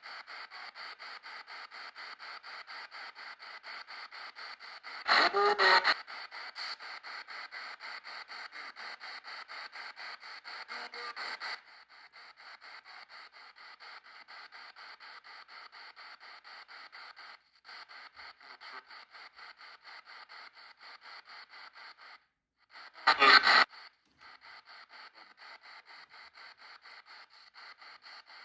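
Spirit box sweep-radio audio played through an audio processor: a rapidly chopped, steady hiss of scanned radio static, with two short, much louder bursts of radio sound about five seconds in and again near the end. The hiss drops in level about halfway through and briefly cuts out twice.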